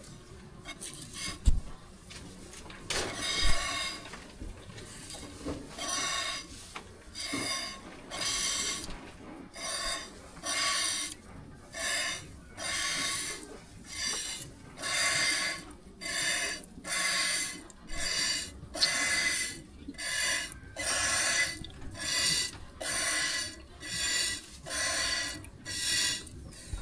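Hand-milking a buffalo: streams of milk squirt from the teats in a steady rhythm of about one squirt a second, settling into that rhythm a few seconds in after a couple of sharp knocks.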